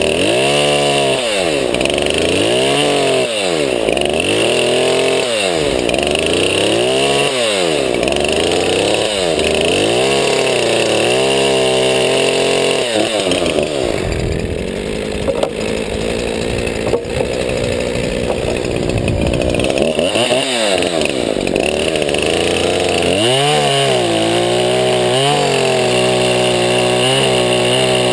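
Craftsman 20-inch 50cc two-stroke chainsaw bucking logs: the engine revs up and falls back about every one to two seconds, runs lower and steadier under load through the middle, then holds a steady pitch near the end.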